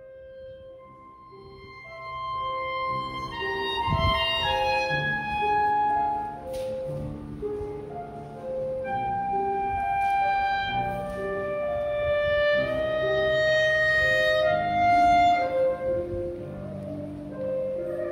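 Instrumental background music with a melody of held notes, fading in over the first few seconds and then staying steady.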